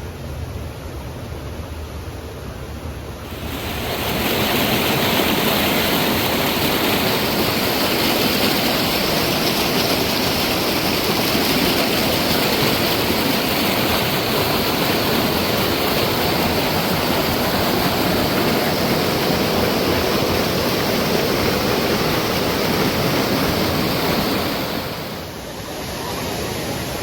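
Close, steady rush of falling water from a waterfall. It comes in abruptly a few seconds in and drops away abruptly near the end, leaving a fainter steady rushing.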